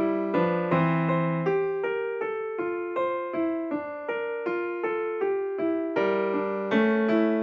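Background music: a gentle electric piano melody with a steady pulse of notes.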